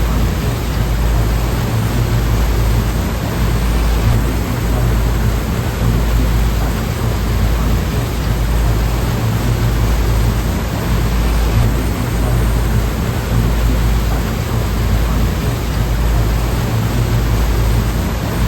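Sea waves in the Taiwan Strait making a steady rushing noise over a deep low rumble, with no separate wave breaks standing out.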